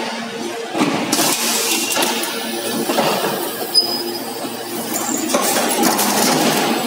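Multi-station hydraulic press line with transfer robots running: a steady machine hum under repeated metallic clinks and clacks as the presses and transfer arms cycle, with one sharp knock a little under four seconds in.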